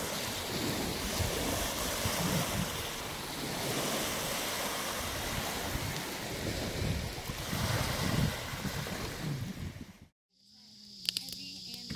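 Small lake waves washing onto a pebble beach, with wind on the microphone. About ten seconds in the sound cuts out briefly, then crickets chirp steadily and a wood fire crackles.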